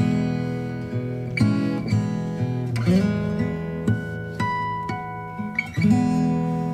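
Background music: acoustic guitar playing chords, with a new note or chord plucked every half second or so.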